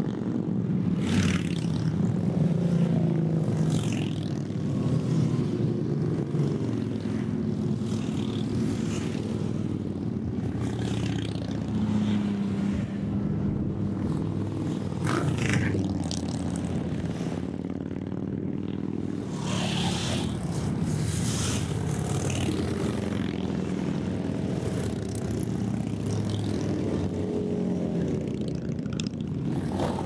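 A procession of cruiser and touring motorcycles riding past one after another, their engines running in a continuous low drone that swells several times as nearer bikes go by.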